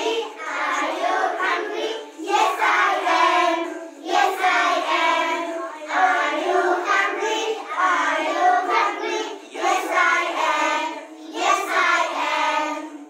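A group of young children singing together in chorus, in phrases of about two seconds with short breaks between them.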